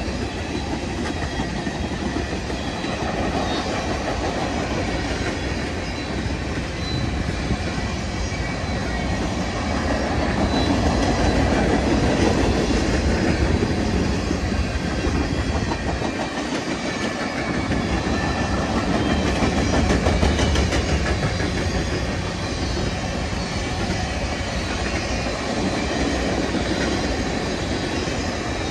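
Cars of a mixed freight train rolling past close by: a steady rumble, with steel wheels clicking over the rail joints.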